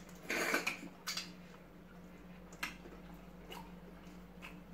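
Close-up eating sounds of two people eating chicken in okra soup with their hands: a noisy burst of chewing and mouth noise in the first second, then a few short, separate clicks, over a faint steady hum.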